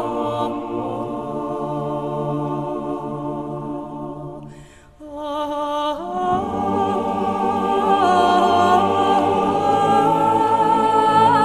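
A choir singing a slow song in long held notes. The singing fades out about five seconds in, then comes back fuller and louder about a second later.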